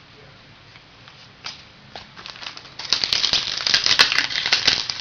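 Trading cards and their pack wrapper being handled: a few soft clicks, then from about three seconds in a dense, crisp crinkling and rustling.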